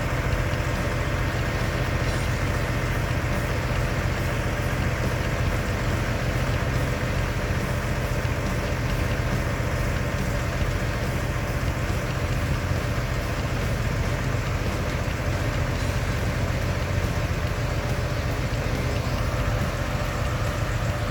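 Heavy vehicle engine running steadily at idle, with an even, unchanging note.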